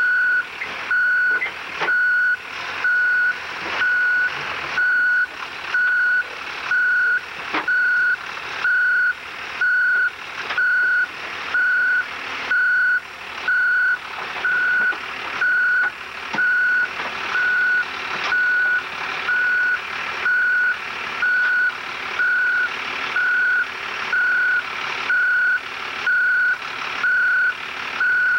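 Vehicle backup alarm beeping steadily, one even tone a little faster than once a second, over the running engine of a tracked snowcat as it is driven up onto a flatbed truck.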